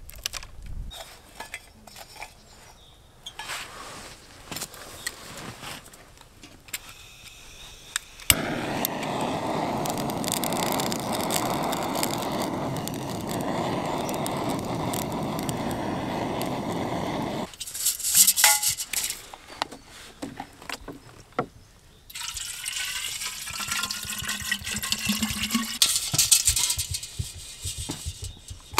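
Water pouring in a steady stream for about nine seconds, then after a pause a second pour whose pitch rises as the vessel fills. Small clicks of handling come before the first pour.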